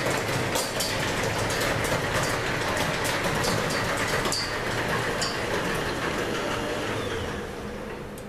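Chamberlain PD222 1/2-horsepower garage door opener running as it lowers a sectional garage door, with the door rattling and rolling down its tracks and many sharp clicks and pops along the way. The owner puts the popping down to the door needing lubrication and adjustment. The noise tapers off and stops as the door reaches the floor near the end.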